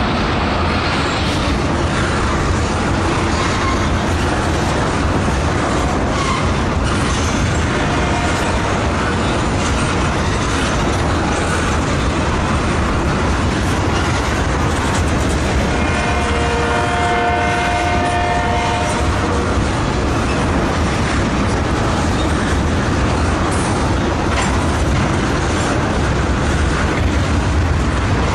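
Oil tank cars of a BNSF freight train rolling past, a steady rumble with the clickety-clack of wheels over the rail joints. About halfway through, a held tone with several pitches sounds for about three seconds.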